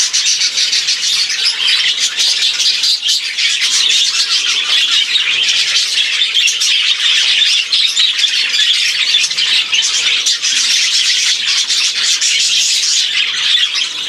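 Many budgerigars chattering and squawking at once in an aviary, a dense, unbroken din of high chirps.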